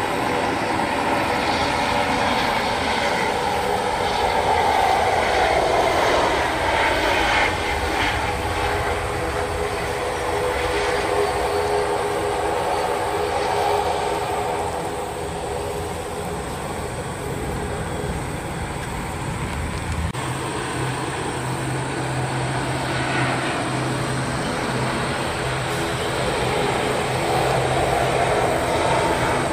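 Jet engines of landing Boeing 737 airliners: a steady whine and rumble that falls in pitch as the first jet passes, then changes abruptly to a second jet approaching, whose whine rises near the end.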